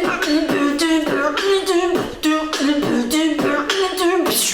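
Beatboxing: a run of short sung notes, each started with a sharp percussive mouth sound, about two to three a second, imitating a sound that was played to the beatboxer.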